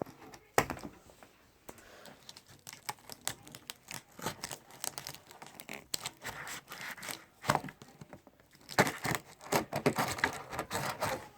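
Packing tape on a cardboard box being slit and torn open, with cardboard scraping and crinkling and irregular clicks and knocks. The noise is busiest in the last third.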